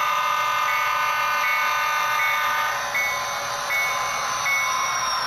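Model railroad grade-crossing bell sound dinging about every three quarters of a second, with an HO scale diesel's sound-decoder horn held as a chord through the first three seconds, then cutting off.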